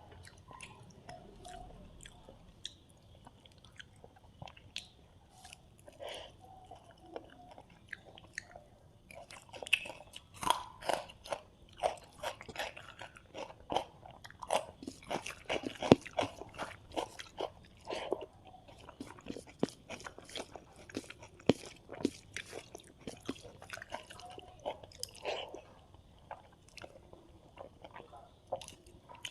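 Close-miked eating: chewing with wet clicks and crunchy bites, sparse at first and then rapid and steady for much of the time before thinning out near the end. The crunch fits the fried fish.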